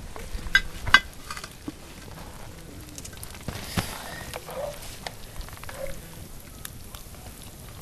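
Serving spoon clinking on a cast-iron Dutch oven as beans are scooped out onto a plastic plate, with a few sharp clicks about a second in and scattered smaller ticks over faint crackling noise.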